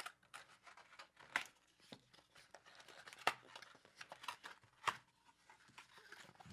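Faint, scattered rustles and clicks of packaging being handled while a handheld digital recorder is unpacked, with a few sharper snaps about a second and a half, three and five seconds in.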